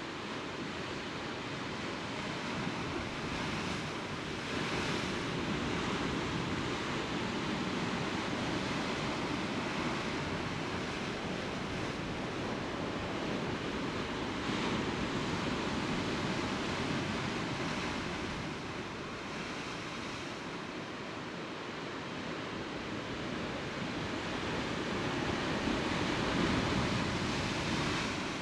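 Sea surf washing against a rocky shore: a steady rush of water that slowly swells and eases, with louder surges now and then.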